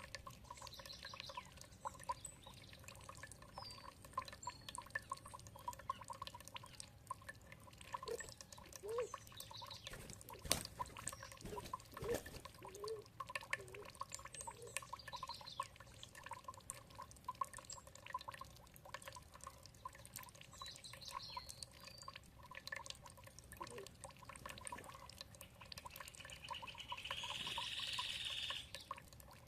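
Water dripping and trickling in many small splashes, with faint short bird chirps now and then and a longer, louder high bird call near the end.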